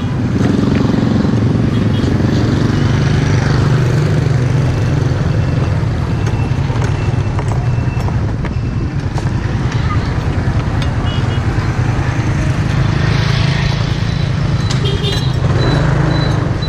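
Motor scooter engine running steadily at low speed, heard from the rider's seat, with short high beeps repeating now and then.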